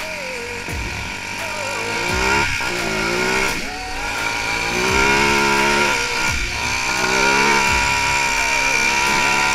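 ATV (quad bike) engine revving up and down under changing throttle while riding a rough track, its pitch rising and falling every second or two.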